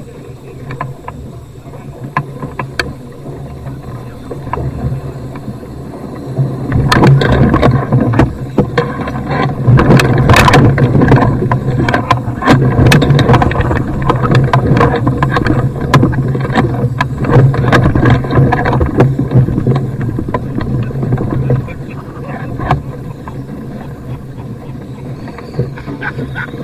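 A hot-air balloon basket bumping and dragging along the ground in a high-wind landing, with wind rumbling on the microphone. It grows loud with many knocks and scrapes from about seven seconds in, then eases off after about twenty seconds.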